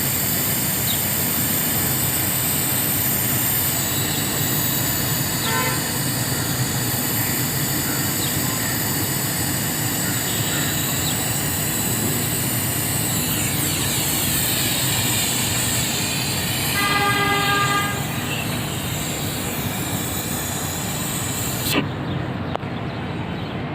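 Steady mechanical or street noise throughout, with a vehicle horn honking once for about a second around seventeen seconds in and a shorter, fainter toot around five seconds in. There is a sharp click near the end.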